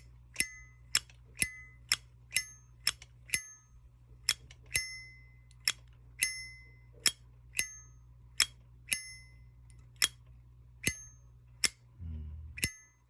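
Zippo lighter lid flicked open and snapped shut again and again: about twenty sharp metallic clicks with a short ring, roughly two a second. The sound is still a little hard, a lighter not yet worked in; breaking in the hinge makes it heavier.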